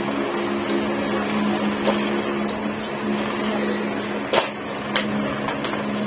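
Steady mechanical hum, with several sharp clicks and knocks over it.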